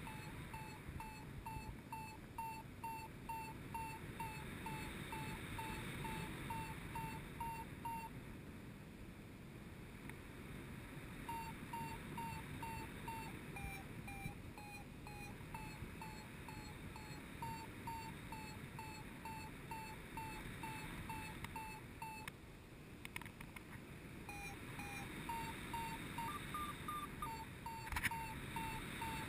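Paragliding variometer beeping steadily in lift, about two to three short beeps a second. The beeping stops for a few seconds about a third of the way in. Its pitch dips slightly mid-way and steps up higher near the end, the vario's sign of a stronger climb. A steady rush of wind noise runs underneath.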